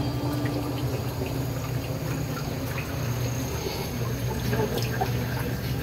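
Water splashing and trickling into a live seafood tank, its surface churned by the circulating filter, with a steady low hum underneath.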